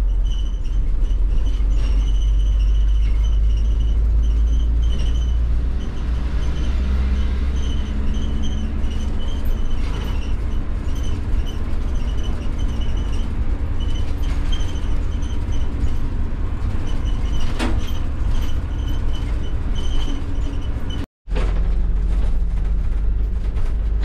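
Ride noise inside the rear compartment of a moving ambulance van: a steady low engine and road rumble with a faint high whine that comes and goes. It cuts out for a moment about 21 seconds in.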